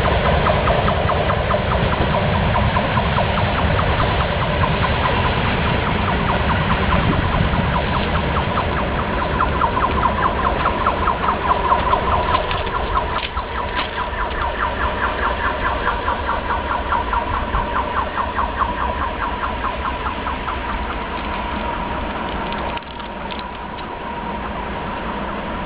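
Steel railway rails singing with vibration from trains passing each other: a steady high ring with a fast fluttering pulse, over a low rumble that fades away about halfway. The level drops suddenly near the end.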